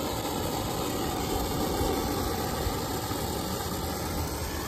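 Brazing torch flame running steadily as it heats a copper refrigerant joint before soldering.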